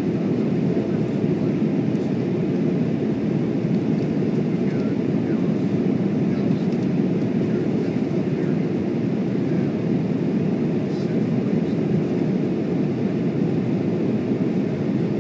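Steady cabin noise of a jet airliner in cruise, heard from inside the cabin: an even, low rushing drone of airflow and engines that holds level throughout.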